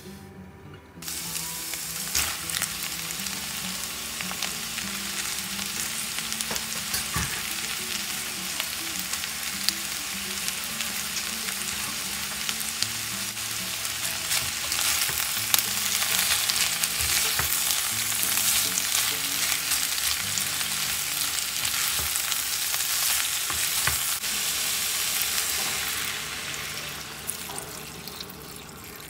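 Cabbage, carrot and celery sizzling as they are stir-fried in a frying pan, with a spatula tossing them and now and then knocking on the pan. The sizzle starts about a second in and dies down near the end.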